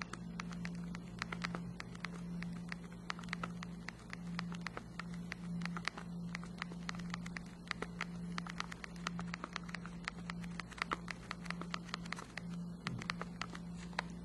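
BlackBerry Storm 9530's clickable touchscreen clicking down under the thumbs while a sentence is typed: a quick, irregular run of light clicks, several a second. A faint steady low hum lies underneath.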